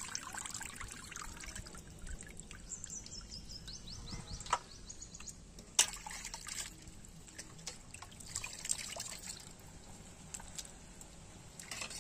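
Water splashing and dripping as raw chicken pieces are washed by hand in a steel bowl, with a couple of sharp knocks about four and a half and six seconds in.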